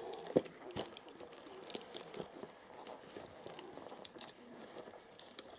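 Leather pouch being handled and unwrapped: its strap unwound and the flap opened, giving rustling with scattered small clicks and taps, and a couple of sharper knocks in the first second.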